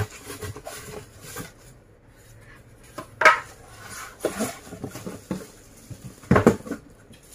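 Hard plastic appliance parts clattering and knocking as they are handled inside a cardboard box, with rustling packaging; the loudest knocks come about three seconds in and again about six seconds in.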